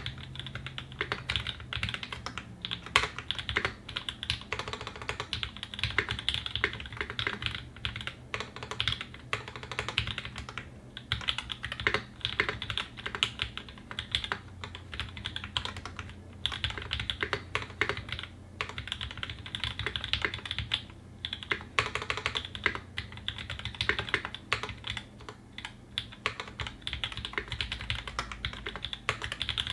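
Steady fast typing on a Singa 75 custom mechanical keyboard with a polycarbonate case and brass plate, lubed Tangerine linear switches, lubed Zeal-clone stabilizers and GMK Metaverse ABS keycaps. It is a dense stream of keystroke clacks with a few brief pauses.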